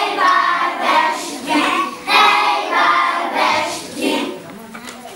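A group of young children singing a song together in short phrases. The singing ends about four seconds in.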